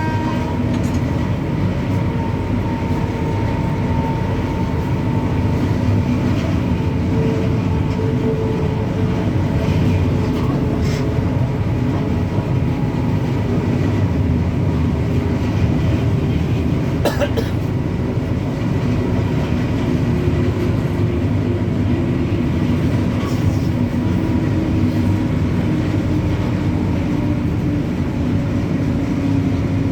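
WAG-9 electric locomotive running: a steady, loud rumble of wheels and machinery with faint humming tones that drift slowly in pitch. A sharp click about seventeen seconds in.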